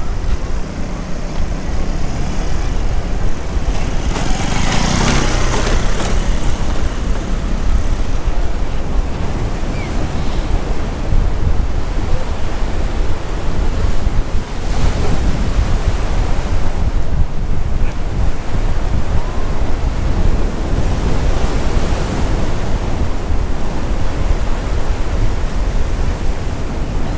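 Sea surf washing and breaking, swelling a few times, most strongly about five seconds in, with wind rumbling on the microphone.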